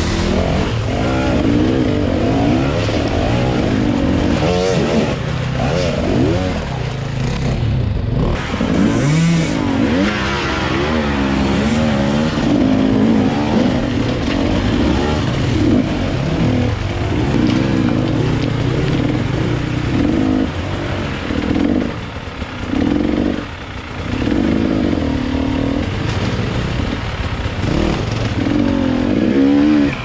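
Two-stroke enduro motorcycle engine revving up and down repeatedly, its pitch rising and falling every second or two as the throttle is worked, with a couple of short drops in revs about two-thirds of the way through.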